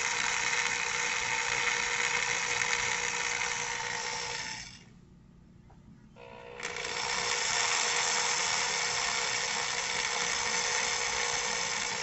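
Electric drill running steadily with a small bit boring into toy car wheels held in a vise. The motor stops about five seconds in and starts again a second and a half later.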